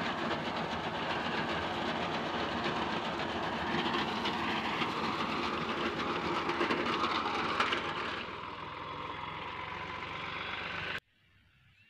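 Tractor engine running under load while a tractor-mounted reaper cuts standing wheat, a steady dense clatter and rustle of the cutter bar and crop over the engine drone. It eases off about two-thirds of the way through, then cuts off suddenly near the end.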